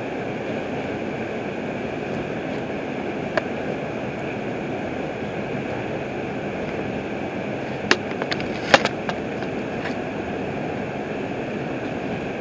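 R142 subway car running on the elevated line, heard from inside the car: a steady rumble and hiss of wheels on rail, with a sharp click about a third of the way in and a brief cluster of clanks about two-thirds in.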